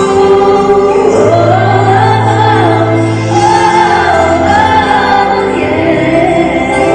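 Live amplified ballad: a female voice sings long, gliding notes over sustained chords and a steady bass.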